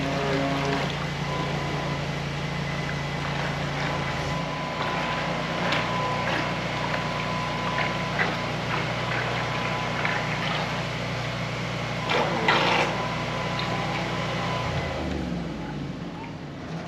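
Radio-controlled model harbor tug running on the water, giving a steady engine-like hum that changes pitch about four seconds in and again near the end. A brief louder rising sound comes about twelve seconds in.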